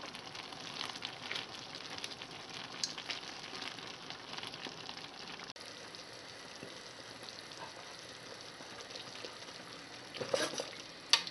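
Sausage, carrot and pickle stew with tomato simmering in a frying pan, a soft sizzle with faint crackles; after a break about halfway through, a quieter steady hiss, then a metal ladle stirring and clinking in a pot of broth near the end.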